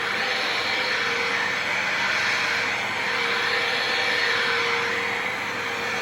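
Dirt Devil Vision MVP Swivel Glide upright vacuum running steadily, a continuous motor whir with a faint hum that swells and fades.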